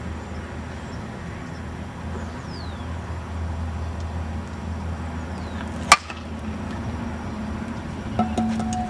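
A prototype slowpitch softball bat strikes a pitched ball once, about six seconds in, making a single sharp hit over a steady low rumble.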